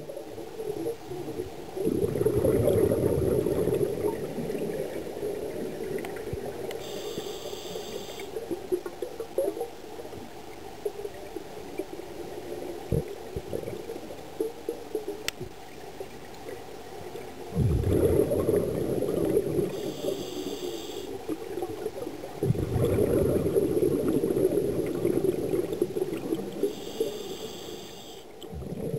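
Scuba divers breathing through regulators underwater: long bubbling, gurgling bursts of exhaled air a few seconds in and twice in the second half, with short hissing breaths drawn through the regulator between them.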